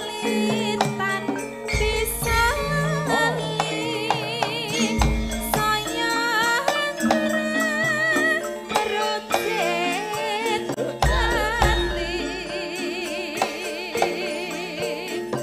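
Javanese gamelan accompanying a female sinden who sings long, wavering lines with wide vibrato, over metallophone tones and kendang drumming. Deep booming strokes sound a few times, about two, five and eleven seconds in.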